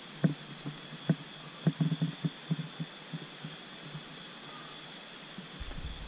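Irregular footsteps on the ground over the first three seconds or so, then fading out, over a steady high-pitched chirring of night insects.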